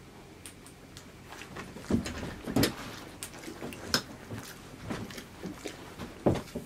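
Kai Ken dogs moving about on a cushioned bed and floor: scattered scuffles and irregular thumps of paws and bodies, the loudest knocks about two and six seconds in.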